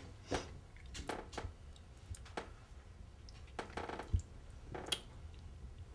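Faint scattered clicks and taps of a ketchup bottle being handled at a table, with a soft wet mouth sound about four seconds in as ketchup is licked off a finger.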